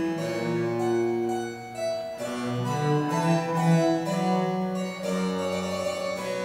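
Harpsichord and cello playing a Baroque passage together: the harpsichord's plucked chords over the cello's sustained bowed notes.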